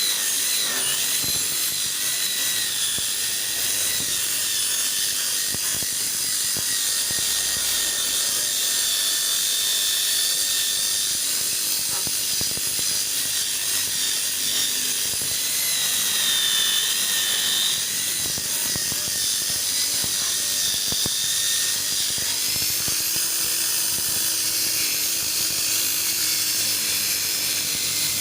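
Electric polishing machine running steadily, buffing a plastic headlamp lens with polishing compound; its high whine wavers up and down in pitch as the pressure on the pad changes.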